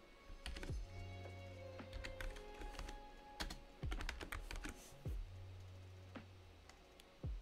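Typing on a computer keyboard: irregular keystroke clicks, some in quick runs, over quiet background music with two long held bass notes.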